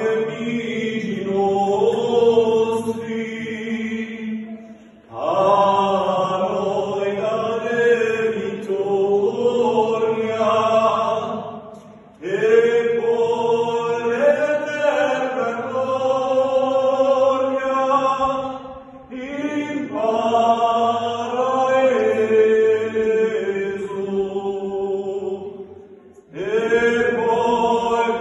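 Small group of men singing an unaccompanied sacred chant in close harmony, in the Corsican polyphonic manner. The chant moves in long held phrases of about seven seconds, each broken by a short pause for breath.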